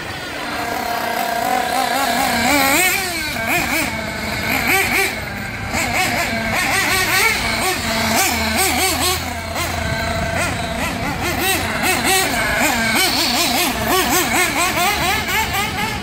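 Small nitro engine of an RC buggy revving up and down over and over as the car accelerates and brakes, a high-pitched buzzing whose pitch swoops many times.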